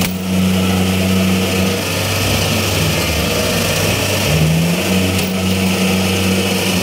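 Rice combine harvester's diesel engine running hard as the machine works to climb out of a muddy ditch, its revs dropping about two seconds in and picking up again a little after four seconds.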